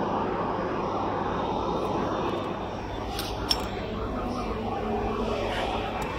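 Steady hum of running workshop machinery, with a few sharp metal clicks about three and a half seconds in as steel pieces are handled on a galvanized steel table.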